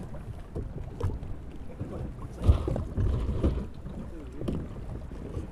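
Shallow sea water sloshing around a person wading beside a small open fishing boat and against its hull. Scattered knocks come from gear being loaded aboard, with one dull thump about two and a half seconds in. Wind buffets the microphone throughout.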